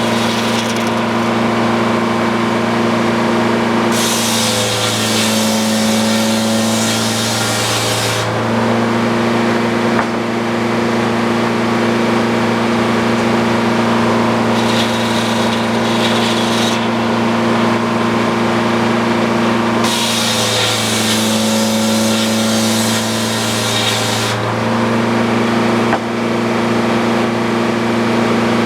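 Old Frick sawmill running steadily under its engine, with the circular head saw cutting through a log twice, each cut lasting about four seconds and hissing loudly. There is a lighter stretch of blade noise between the two cuts.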